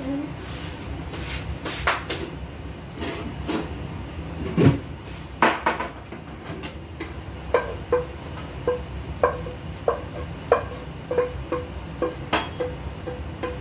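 A cooking utensil clanking against a metal wok. Scattered clinks and a heavier knock come first; from about halfway there is a quick run of light knocks, two or three a second, each ringing briefly.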